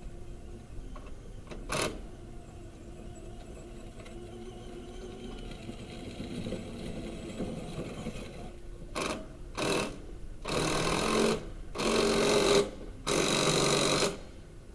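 A power tool run in five short bursts, two brief and then three of about a second each, with a single click a few seconds earlier.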